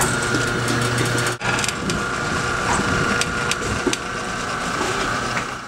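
Electric boat-lift motor running with a steady whine, while the lift's cables and frame creak and click.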